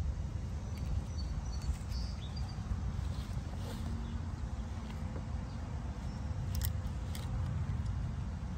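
Steady low rumble, with a few faint clicks and rustles as gloved hands handle a blower motor's wire leads, and a few faint high chirps about two seconds in.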